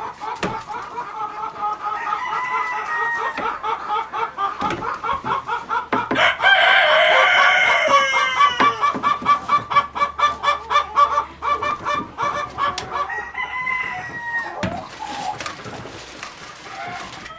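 Chickens clucking in rapid runs of repeated calls, about three to four a second. A louder, higher call that fits a rooster crowing cuts in partway through.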